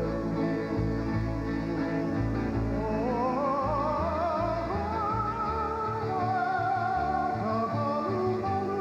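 Hawaiian music: a male voice singing long held notes with a wide vibrato, entering about three seconds in, over plucked guitar or ukulele chords and a bass line.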